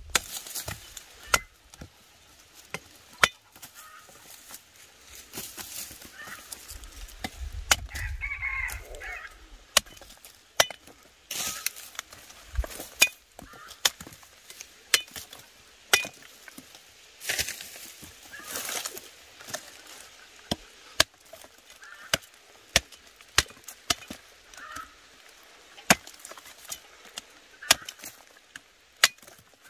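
A hand knife chopping cassava tubers off the root stump: many single sharp chops at irregular intervals, with the scrape and rustle of roots and dry soil being pulled apart.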